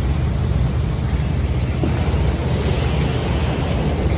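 Sea surf washing onto the shore in a steady rush, with wind buffeting the microphone and adding a heavy low rumble.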